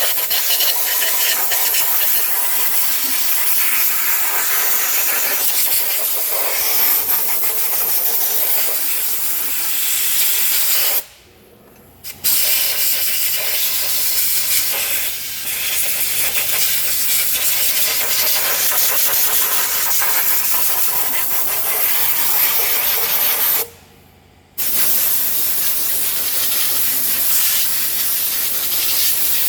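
Steady, loud hiss of a high-pressure cleaning spray blasting dirt off engine parts. It cuts off twice for about a second and starts again.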